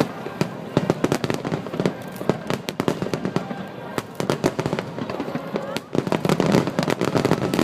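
Fireworks display: many shells bursting in rapid succession, a dense run of sharp crackling bangs that thins out in the middle and thickens again near the end.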